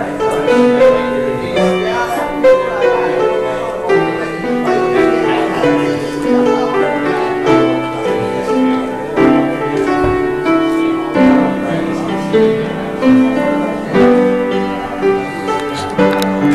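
Keyboard instrument playing a slow tune of sustained notes and chords that change steadily.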